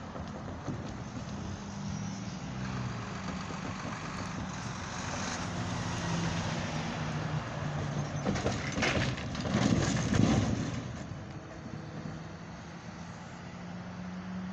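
Road traffic crossing a railroad grade crossing: a semi tractor-trailer's diesel engine running as it drives over the tracks, growing louder to a peak with a clatter about nine to ten seconds in, then fading as it moves off.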